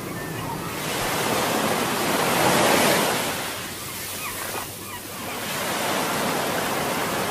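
Small waves washing against a rocky shore, a rushing surge that swells about three seconds in, falls back around five seconds, then builds again.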